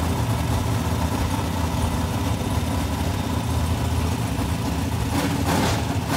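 Carbureted V8 race engine of a NASCAR Craftsman Truck idling steadily, then the throttle is blipped open at the carburetor near the end.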